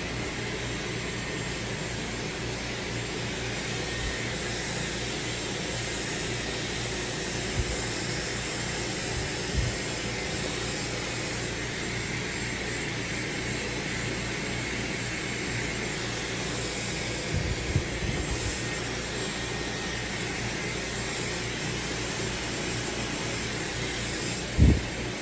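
Dyson Supersonic hair dryer blowing steadily, a constant rushing hiss of air. A few short low thumps break through it, the loudest near the end.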